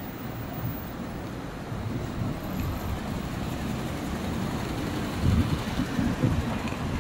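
Wind buffeting the microphone of a moving e-bike in a sandstorm: an uneven low rumble that grows louder about five seconds in.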